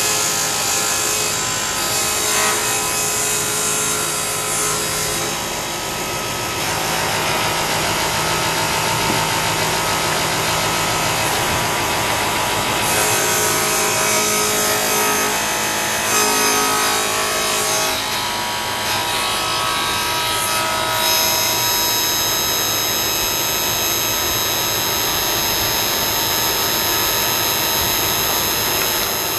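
Table saw running and ripping a thin strip of wood. About two-thirds of the way through, the sound settles into a steady high whine.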